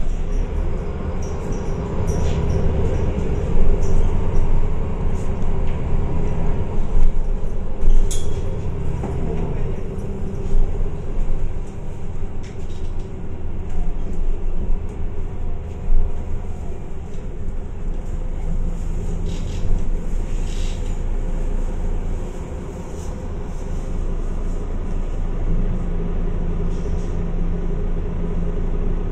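MAN A22 city bus running in service, heard from on board: a continuous engine and drivetrain drone whose note changes pitch several times, with scattered short rattles and clicks.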